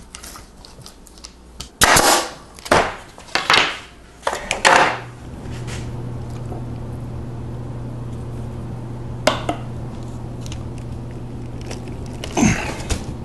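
A small rubber glue roller rolled back and forth through wet wood glue on an ash board, several strokes early on. A steady low hum then sets in, and near the end the boards are pressed together.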